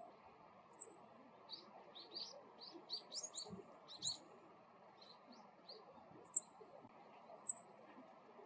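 Male meadow bunting calling: short, very high doubled "chi-chit" notes, repeated several times. Softer, lower chirps come in between.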